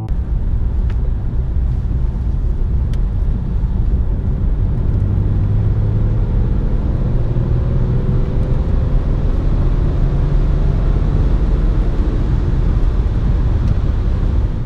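Cabin sound of a BMW 325d E90's straight-six turbodiesel accelerating hard from about 80 to 120 km/h: a loud, heavy low rumble of engine and road noise, with a faint engine note slowly rising in pitch as the revs climb.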